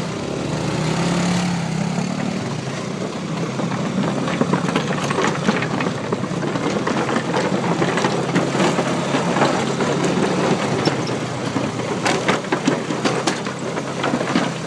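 Small motorbike engine running at low speed, with many irregular clacks and knocks from the wheels rattling over a bamboo bridge deck.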